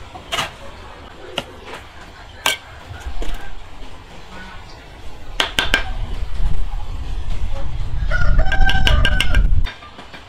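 A rooster crows once, a held call of about a second and a half near the end, over a low rumble. Several sharp knocks or clicks come earlier.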